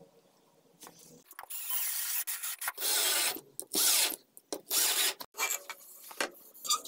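Cordless drill driving screws into pine wood: four bursts of the drill running, about a second apart, the first the longest.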